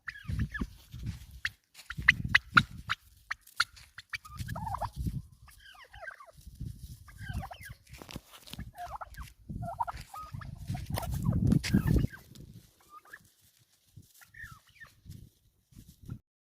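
Farmyard fowl calling over and over in short warbling calls, with a low rumble on the microphone in bursts underneath.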